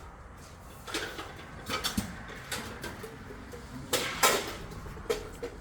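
Footsteps and knocks on a hard floor, about one a second, with a louder pair about four seconds in.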